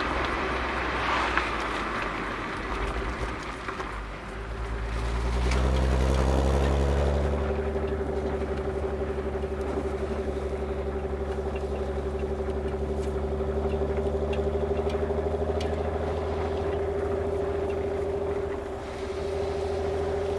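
Exhaust of a stock Volkswagen Golf R32's 3.2-litre VR6, heard from the rear bumper: road and tyre noise at first, then about five seconds in the engine note swells and settles into a steady drone at an unchanging pitch.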